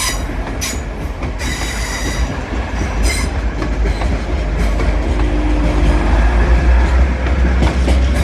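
Long intermodal container freight train passing, its wagons' wheels clattering over the rail joints, with brief high wheel squeals a few times in the first three seconds.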